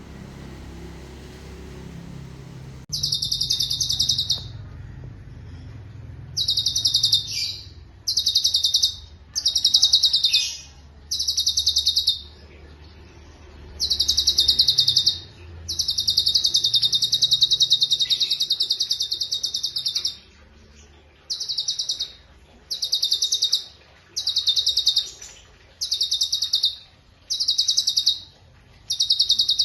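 Cucak cungkok singing in a run of fast, dense rolling trills, each burst lasting a second or two with short breaks. About fifteen bursts, with one longer one near the middle. A low rumble is heard before the first trill, about three seconds in.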